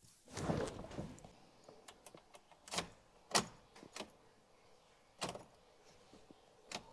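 Sharp clicks, about five of them spread over several seconds, from the ignition key and dash controls of a Mazda MX-5 with a completely dead battery: nothing cranks or runs. A short rustling thump comes just before the first click.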